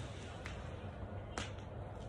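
Plastic ground tarp being spread out, giving two sharp crackling snaps about a second apart over a steady low rumble.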